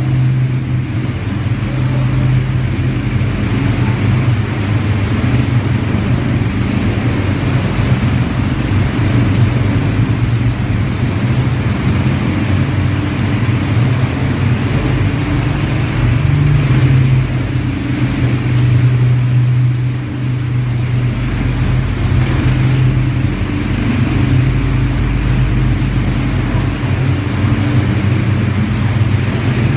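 Quad bike engines running steadily as the bikes ride through a rock tunnel, the engine note shifting a little in pitch now and then.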